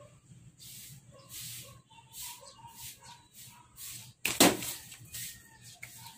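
Homemade slingshot made from a bicycle seat, fired once: a sharp snap as the stretched band is released about four seconds in, the loudest sound, among faint short ticks and chirps.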